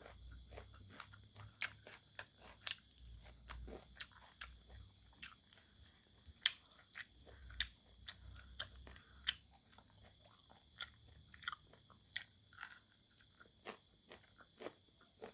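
Close-up chewing and biting of fried pork: a string of short, sharp mouth clicks and crunches at an uneven pace, a few a second.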